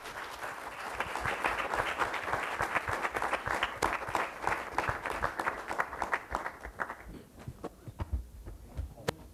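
Audience applauding, dense at first and thinning to scattered claps after about seven seconds.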